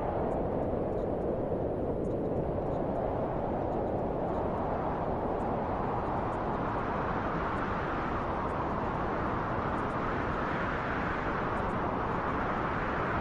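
Wind blowing steadily, a continuous rushing that slowly swells and brightens in the middle of the stretch and then eases.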